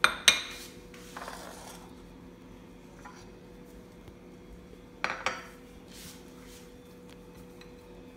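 Glass dishes clinking sharply on a stone counter as shaped tikki balls are set down: two quick ringing knocks at the start, and two more about five seconds in. A short soft rustle comes between them, and a faint steady hum runs underneath.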